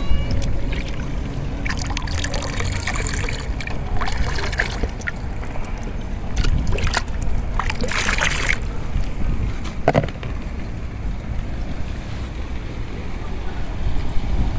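Outdoor pondside sound dominated by a steady low rumble of wind on the microphone, with a few short noisy bursts of water splashing.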